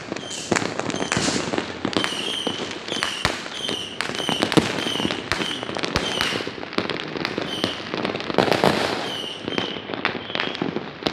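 Many fireworks going off at once: a dense, irregular run of bangs and crackling pops, near and far. A short high chirp repeats about twice a second through most of it.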